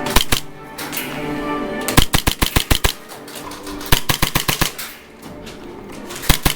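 Airsoft guns firing in an indoor game: a couple of shots at the start, a rapid string of about ten shots a second about two seconds in, then scattered single shots and another string near the end.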